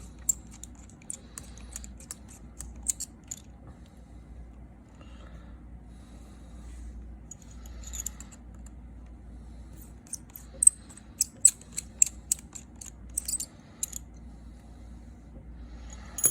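Light, sharp metallic clicks and ticks from a small pentalobe screwdriver working the two tiny bottom screws out of an iPhone 6s Plus. They come in two short spells several seconds apart.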